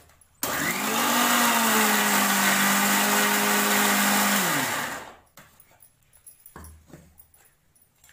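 Electric mixer grinder with a steel jar, grinding green chutney. The motor whine rises as it starts about half a second in and runs steadily for about four seconds. It then falls away as the motor is switched off and spins down, followed by a few faint clicks and knocks.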